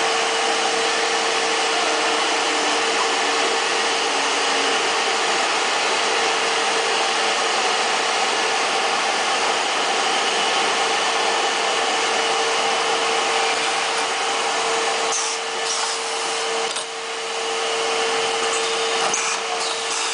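Cable-processing machinery on an extrusion line running: a steady mechanical hiss with a constant whine. A few light clicks come in the last few seconds.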